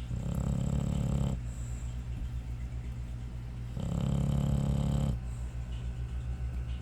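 American Bully dog snoring: two long, rattling snores about four seconds apart, each lasting just over a second, with a softer low rumble of breathing between them.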